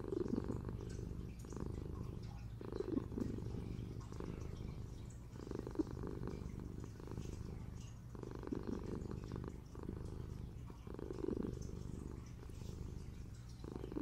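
Kitten purring steadily while being stroked, the purr swelling louder about every three seconds.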